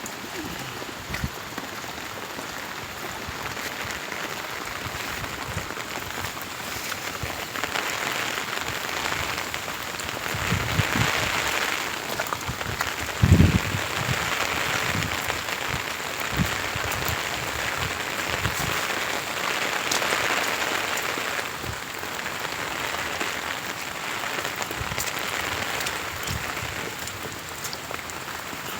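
Heavy rain falling steadily, a constant hiss that swells and eases, with one low thump about 13 seconds in.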